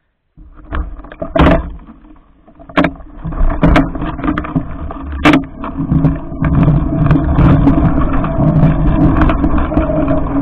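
Electric bike setting off and riding through snow: several sharp knocks in the first few seconds, then a steady running noise with a hum that builds from about three seconds in.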